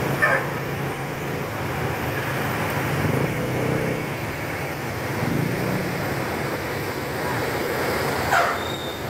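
Engines of a slow-crawling traffic jam of cars, motorcycles and a coach bus running steadily under a low hum, with two short louder sounds, one right at the start and one near the end.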